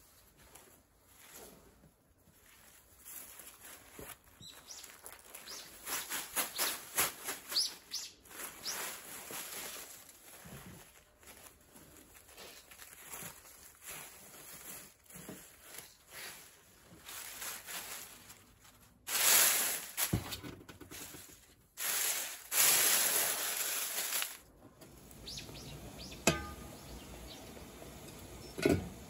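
Hands rustling cloth and fermented tea leaves as the bundle is unwrapped and the leaves are spread out to dry, a run of short scrapes and crinkles with two louder bursts of rustling about two-thirds of the way through.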